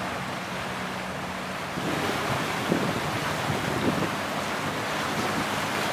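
Wind buffeting the microphone over the wash of water, with a low steady hum in the first couple of seconds that stops abruptly about two seconds in.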